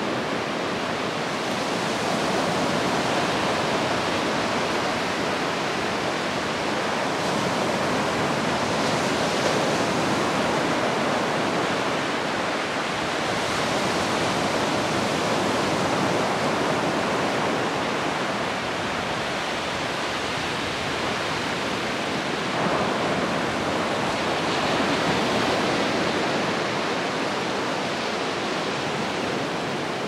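Surf breaking and washing up a sandy beach: a steady rush of waves that swells and eases every several seconds.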